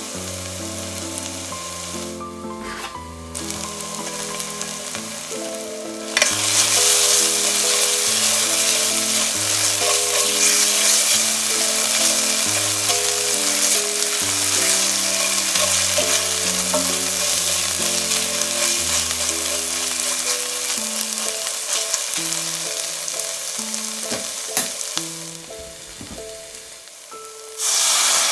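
Dried oregano and white miso paste frying in oil in a stainless steel pan, stirred with a spatula: a steady sizzle that grows louder about six seconds in and fades near the end. It surges again just before the end as white wine is poured into the hot pan.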